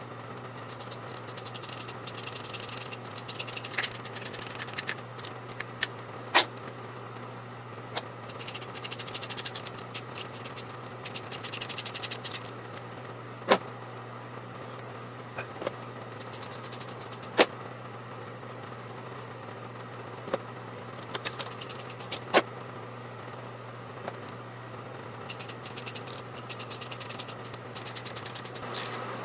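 Hand tools working the hose clamps on a radiator hose: bursts of rapid clicking with a few single sharp clicks as tools and parts are handled, over a steady low hum.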